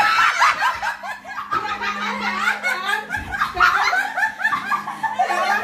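A group of people laughing together, several voices overlapping in short bursts of laughter.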